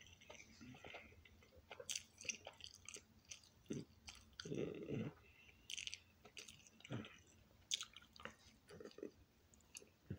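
A person chewing a mouthful of pizza close to the microphone: faint, irregular mouth clicks and smacks.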